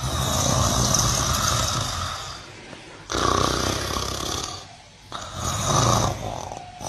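A cow snoring: three long snores in a row, each lasting a couple of seconds, with short breaks between them.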